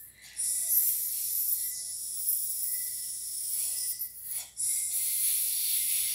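A steady, high hiss that drops out briefly about four seconds in.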